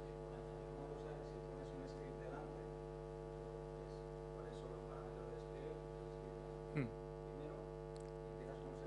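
Steady electrical mains hum with a row of even overtones, and a brief falling sound about seven seconds in.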